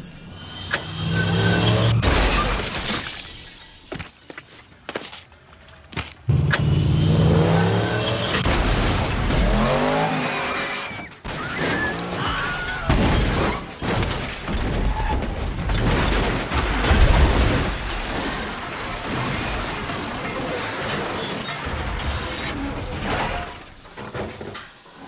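Film soundtrack of a violent car crash: crunching metal and shattering glass in several loud waves, with music underneath. It fades off just before the end as the car rolls over.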